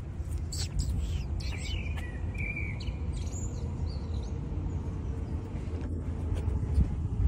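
Small birds chirping several times in the first half, over a steady low outdoor rumble.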